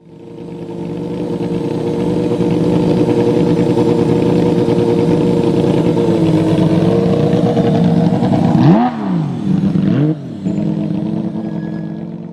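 Porsche 911 GT3's naturally aspirated flat-six running steadily, then two sharp throttle blips where the revs shoot up and drop back, about nine and ten seconds in, before it settles and fades.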